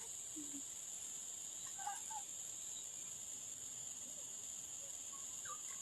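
Faint, steady high-pitched insect drone, with a few short chirping animal calls about two seconds in and again near the end.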